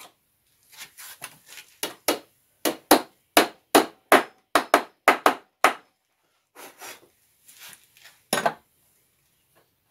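Claw hammer striking a steel nut into a hole in a wooden workbench leg: about a dozen sharp blows, coming faster around the middle, then stopping a little past halfway. One more knock near the end as the hammer is set down on a wooden stool top.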